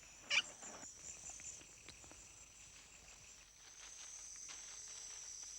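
Rainforest insect chorus: a faint, steady high-pitched buzzing, pulsing at first and then even, with one short high chirp about a third of a second in.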